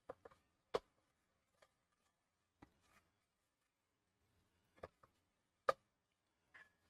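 A spoon clicking and knocking against a mixing bowl while stirring a stiff gluten-flour dough, in scattered irregular taps, two of them louder, under a second in and near the end.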